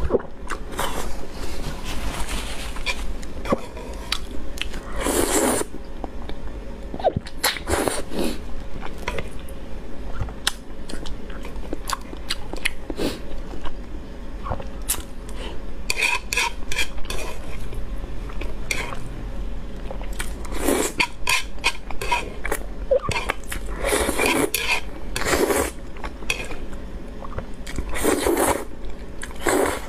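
Close-miked eating of black-bean-sauce noodles (zhajiangmian) with eggs: wet chewing throughout, broken by several loud slurps of noodles, one of them near the end, and small clicks.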